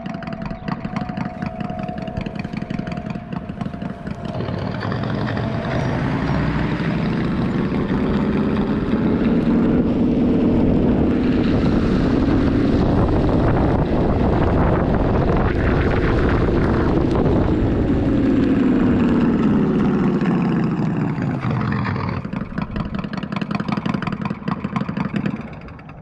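Synthetic Harley-Davidson Fat Boy motorcycle engine sound played by an electric unicycle's AVAS sound app. It rises in pitch as the wheel speeds up, holds high for several seconds at speed, then falls back as it slows to a stop.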